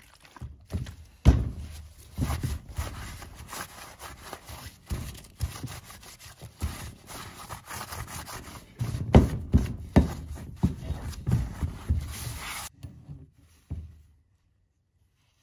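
Gloved hand rubbing and wiping a machined 6061 aluminum triple clamp with solvent to strip the blue layout fluid. Irregular scrubbing strokes, some louder than others, that stop about thirteen seconds in.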